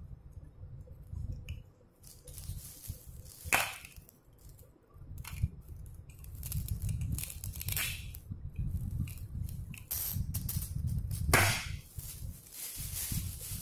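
Plastic toy kitchen pieces being handled: toy fruit, bowls and dishes knocking together in a few sharp knocks, about three and a half, eight and eleven seconds in, with smaller clicks and rustling between.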